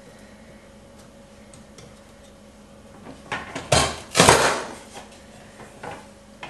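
PL8 push-down vegetable chopper's lid pressed hard, forcing celery pieces through its dicing blade grid: a loud clatter of knocks lasting about a second, about three seconds in. A few light plastic clicks come before it and a smaller knock near the end.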